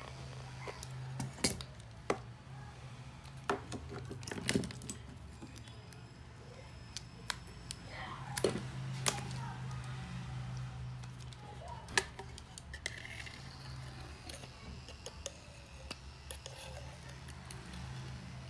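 Sporadic sharp clicks and taps of small tools against a phone frame during a hand repair, over a steady low hum.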